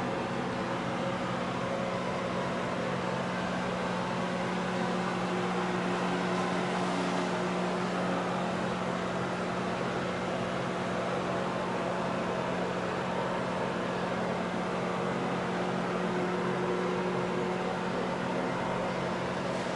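Steady mechanical hum: one low drone with a fainter higher tone over an even hiss of moving air, unchanging throughout.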